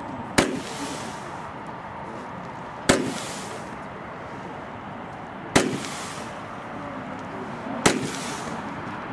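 Consumer firework battery firing single shots: four sharp launch bangs about two and a half seconds apart, each followed by a short hiss as the glittering comet rises.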